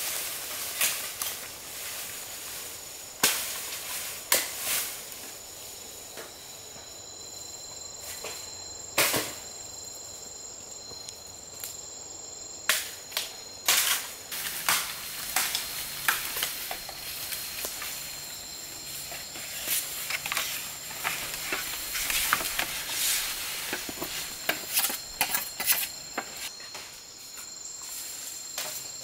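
Irregular sharp knocks and snaps, sometimes several in quick succession, over steady high-pitched insect chirping.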